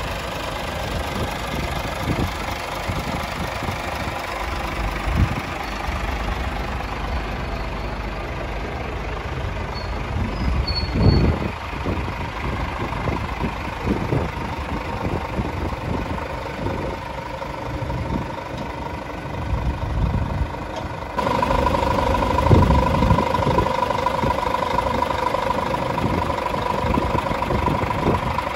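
Scania truck's diesel engine idling steadily, with a low rumble and a steady whine, and occasional low thumps. It gets louder and the whine stronger about two-thirds of the way through.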